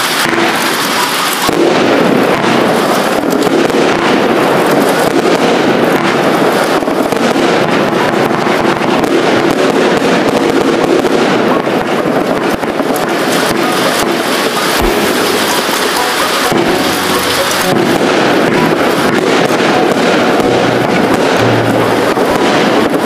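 A 268-shot firework cake firing continuously, with rapid overlapping launch reports and bursts and no gaps.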